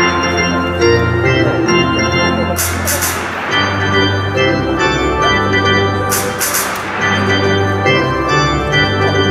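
Stadium organ playing a tune in held chords that change every second or so, with short bright hissing bursts about every three and a half seconds.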